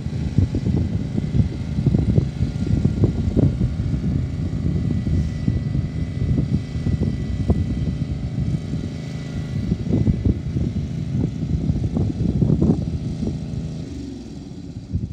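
Engine of a 14 hp Honda hydrostatic-drive lawn tractor running under load as it tows a light aircraft across grass, with a rough low rumble. It fades over the last second or so as the tractor moves away.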